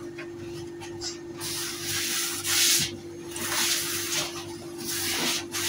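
Hand rubbing and sweeping across a countertop in three long swishing strokes, spreading flour over the work surface.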